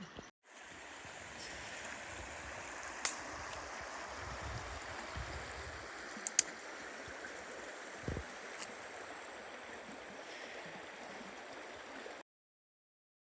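Steady rush of a flowing river, with a few sharp clicks partway through; it cuts off suddenly near the end.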